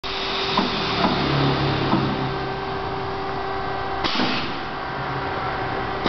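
Plastic tank clinching (crimping) machine running: a steady hum with a few light clicks in the first two seconds and a short rushing noise about four seconds in.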